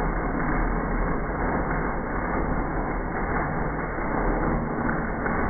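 Electric arc welding on a steel pipe joint: the arc runs continuously at a steady level, without a break.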